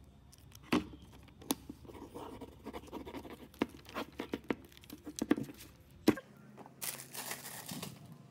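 Scattered clicks and taps of small items being handled at a shop counter, then about a second of crinkling plastic packaging near the end.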